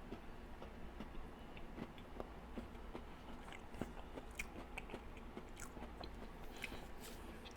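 Close-up mouth sounds of someone chewing a bite of chocolate cake, faint wet smacks and small clicks with an occasional light crunch from cookie bits in the cake.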